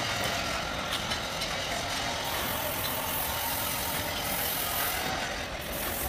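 Compressed-air paint spray gun hissing over a steady mechanical noise, with the hiss loudest from about two seconds in to about five seconds.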